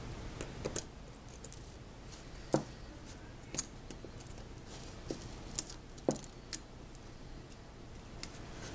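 Irregular small clicks and light taps of a small screwdriver and tiny screws and washers being handled on a work surface, as the side screws of an iPhone 4 are removed. About eight sharp ticks, the loudest about two and a half seconds in.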